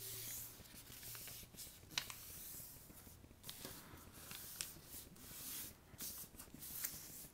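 Sheet of paper rustling and scraping as folds are pressed and creased flat by hand, with a few short sharp crinkles.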